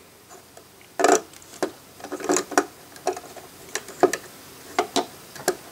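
LEGO plastic parts clicking and knocking as hands handle the model boat and lift the small submarine off its hook: a string of irregular clicks, the loudest about a second in.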